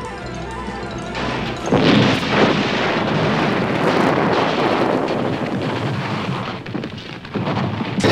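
An explosion: a sudden loud boom about two seconds in, then a long rumble that dies away, over dramatic television score music.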